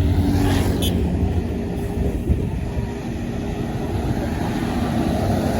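Road traffic: a heavy diesel vehicle goes by, its engine drone fading over the first two seconds, over a steady low rumble of traffic.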